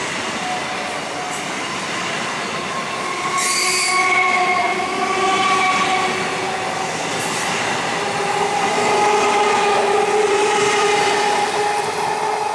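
EMU local train coaches rolling past, wheels squealing in several held whining tones over the steady rumble of the running gear. A brief hiss sounds about three and a half seconds in.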